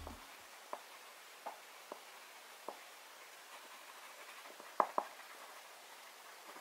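Soft oil pastel stick rubbed over paper in short colouring strokes: a faint scratchy rubbing with a few light ticks, two of them close together about five seconds in.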